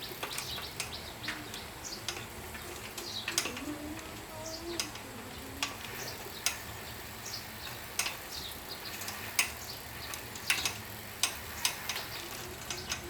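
Irregular sharp clicks or light taps, roughly one every half-second to second, with birds chirping faintly in the background.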